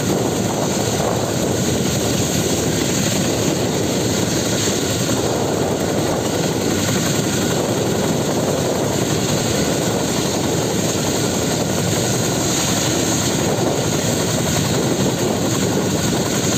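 Boeing Vertol 234 Chinook tandem-rotor helicopter running on the ground, its twin turboshaft engines and two rotors turning with a steady, loud noise.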